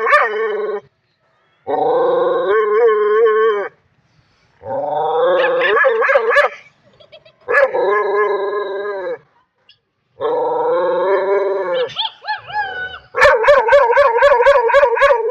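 Street dog howling in a series of long, wavering calls about two seconds each, with short gaps between them; near the end one call breaks into a quick run of pulsed yelps.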